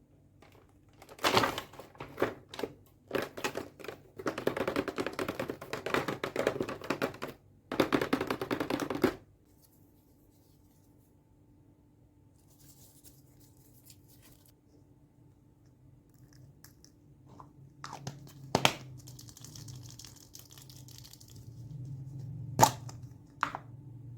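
Toy makeup set's packaging being handled and torn open: dense crinkling and tearing over the first several seconds, then quieter handling with a few sharp clicks or taps.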